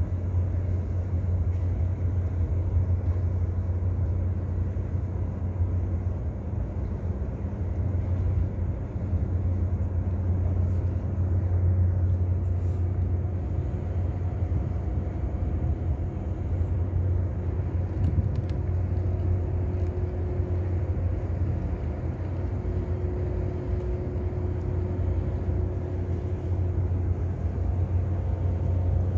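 Large container ship's engines and machinery giving a steady deep rumble as the ship passes close by, with a faint hum of steady tones above it.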